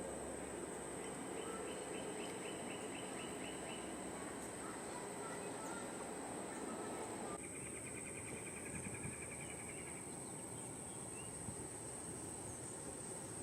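Marsh ambience: a steady high-pitched insect drone over a soft hiss, with two brief rapid trills, one early and one after a cut about halfway through.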